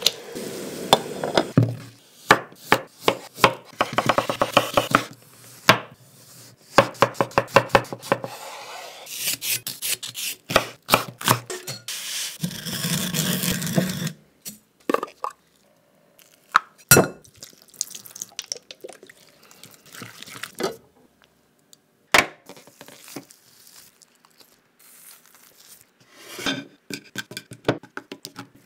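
Close-up kitchen sounds in several short bursts: quick, rapidly repeated knife strokes on a wooden cutting board, sesame seeds being ground in a mortar, and scattered single knocks of dishes and utensils.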